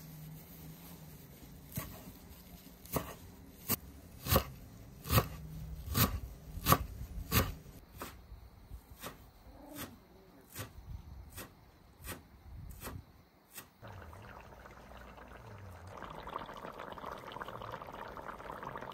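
A steady run of sharp knocks, a little over one a second, loudest midway, which stops near the middle. Then a steady hiss of food cooking sets in and grows louder near the end.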